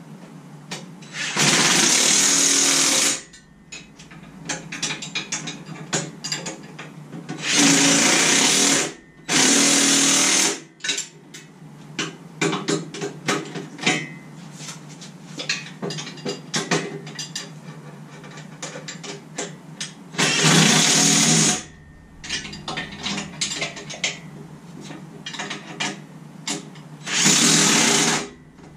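Cordless impact tool with a socket, run in five bursts of a second or two each, tightening bolts on the engine stand. Scattered clicks and tool clatter between the bursts.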